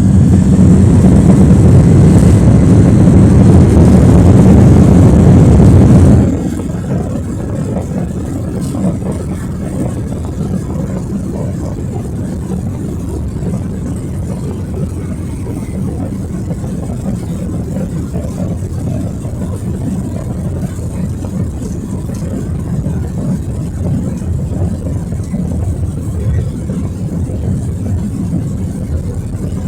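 Jet engine and airflow roar of a Boeing 767-300ER heard from inside the cabin during takeoff. It is loud for about six seconds, then drops suddenly to a lower, steady rumble.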